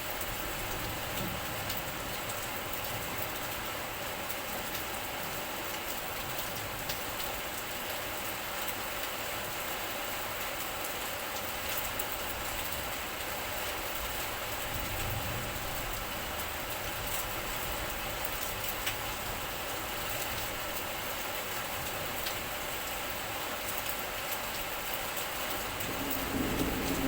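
Steady rain falling: an even hiss with scattered sharp drop taps. A low rumble swells briefly near the end.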